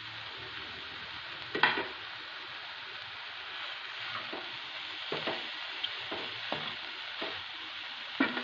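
Mushrooms and broccoli frying in a pan with a steady sizzle, stirred with a spatula that scrapes and taps the pan now and then, most sharply about one and a half seconds in and again near the end.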